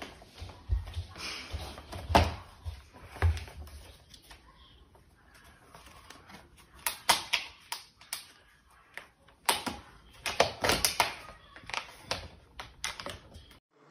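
Irregular plastic knocks and rattles from a small toy shopping cart as a cat climbs into and out of it, with quicker clusters of clatter in the second half.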